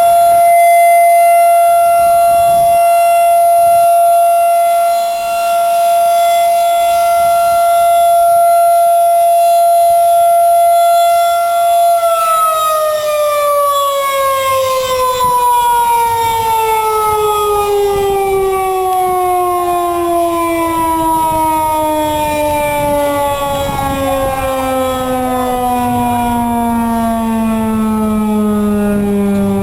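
Outdoor tornado warning siren on its monthly test, holding a steady high tone. About twelve seconds in it begins to wind down, its pitch falling steadily lower as it slows.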